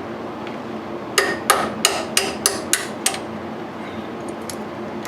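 Hammer striking steel at a lathe motor's pulley shaft, where a tapered key is being driven out, in seven quick ringing taps that start about a second in and last some two seconds.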